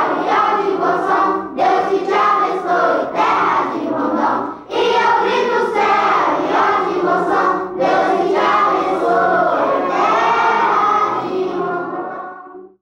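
Choir singing, many voices together in a steady stream of song that tapers off and stops shortly before the end.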